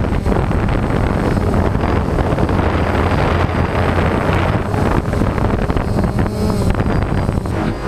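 DJI Phantom quadcopter's motors and propellers running steadily as it lifts off and climbs, heard loud and close from the camera mounted on it, with wind buffeting the microphone.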